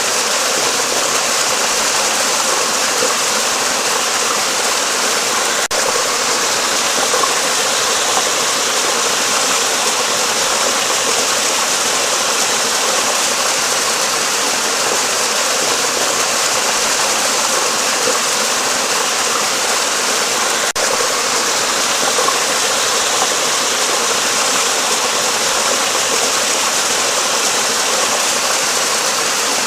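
Water of a stream flowing steadily under a bridge, an even rushing sound with no change in level.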